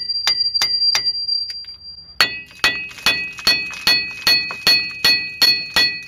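Sledgehammer blows on the rust-seized steel front hub of a Dodge Ram 2500, each strike a sharp clang with a metallic ring. About four quick blows, a short pause about a second and a half in, then a steady run of about ten blows at roughly two and a half a second. The hub is being beaten out of its knuckle.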